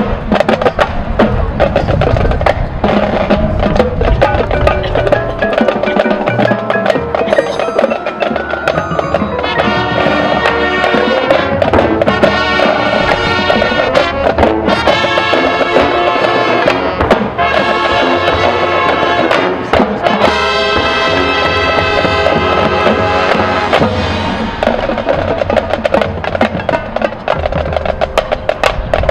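Marching band playing: rapid percussion strikes throughout, joined by sustained brass and wind chords from about nine seconds in until about twenty-four seconds, after which the percussion carries on mostly alone.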